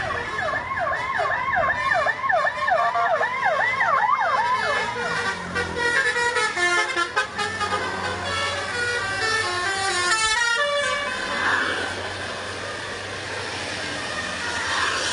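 Tour bus 'basuri' musical horn (telolet) sounding: for about four seconds it plays fast repeating siren-like swoops, about three a second, then switches to a quick melody of short stepped notes.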